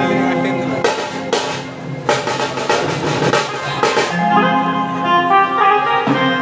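Band music with tasha drums: fast drum rolls and rapid strokes over wind and brass instruments holding sustained notes, the drumming heaviest in the first half.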